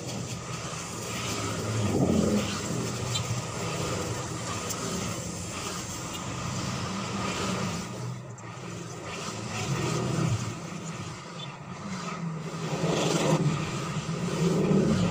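Xenon CDGT 720 cordless grass trimmer with a circular blade running as it cuts through grass. Motorbikes on the road pass several times, rising and fading.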